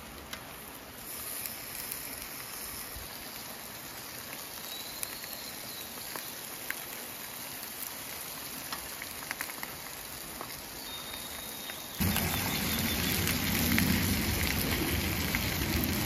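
Eel fillets sizzling on a griddle pan over a portable gas stove, a steady crackle with small pops, turning louder and fuller about three quarters of the way through.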